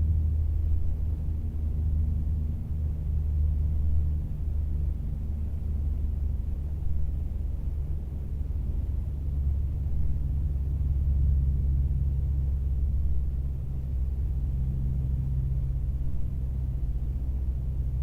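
Distant propeller plane droning overhead: a steady low rumble with a few hum tones that drift slightly in pitch.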